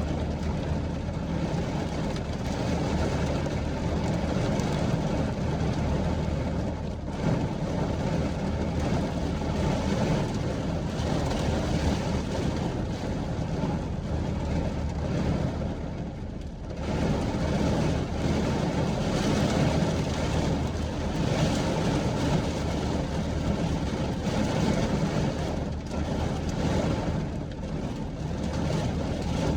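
Wind and rain: a continuous, heavy rushing noise that gusts up and down, easing briefly about sixteen seconds in.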